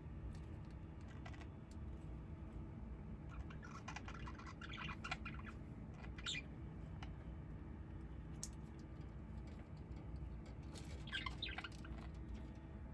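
Small bird's faint short chirps or peeps in a few quick clusters, about four, six and eleven seconds in, over a steady low hum.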